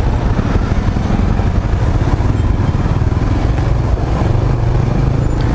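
Yamaha R15 V3's single-cylinder engine running steadily at low speed in slow-moving traffic, with no revving.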